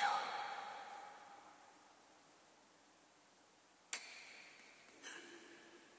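The fading tail of a cry or sung note dies away in the church's echo. A quiet, reverberant hall follows, broken by two sharp clicks a little over a second apart in the second half.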